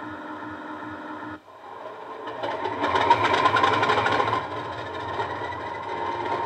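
Sound-decoder recording of a Class 50's English Electric 16CSVT diesel engine played through a small model-railway speaker. It idles with a steady low throbbing beat, dips briefly about a second and a half in, then builds to a louder, busier engine note that peaks a couple of seconds later and settles to a steadier, louder running sound.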